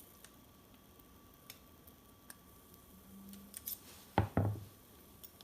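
Light metallic clicks of Ruger GP100 revolver parts being handled, then two louder knocks a little past four seconds in.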